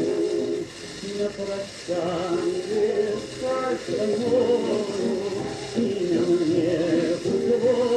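Old 1930s gramophone recording of a Russian romance: a male tenor voice sings a slow, wavering melody with vibrato over accompaniment, with a steady hiss from the old recording underneath.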